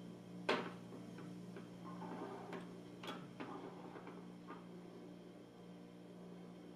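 Light plastic clicks and taps from a small folding mini quadcopter's plastic body and arms being handled, with a sharper tap about half a second in and scattered lighter clicks over the next four seconds. A faint steady low hum runs under them.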